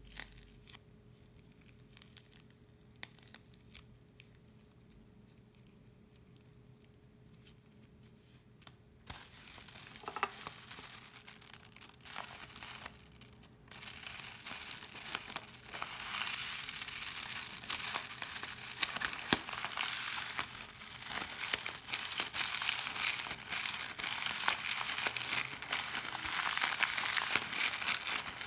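Faint scattered clicks of tiny seed beads falling from a plastic piping bag onto clear slime, then the crinkle of the plastic bag being handled. About halfway through, colourful foam beads start pouring from the snipped bag onto the slime, a dense, louder rain of light clicks.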